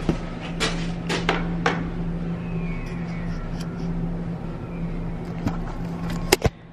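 A few sharp clicks and knocks from a spirit level and the camera being handled against wooden blocking, most of them in the first two seconds and two more near the end, over a steady low hum.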